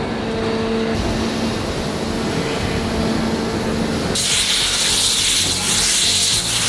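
Heavy industrial machinery running with a steady hum. About four seconds in it cuts abruptly to a louder, continuous hiss.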